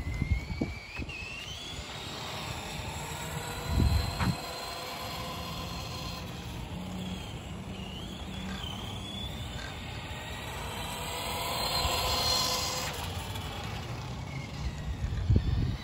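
Tamiya Toyota Hi-Lux Monster Racer electric RC truck driving on asphalt: its motor whine glides up and down in pitch as it speeds up and slows, and swells to a louder rush about twelve seconds in. Wind thumps on the microphone about four seconds in and near the end.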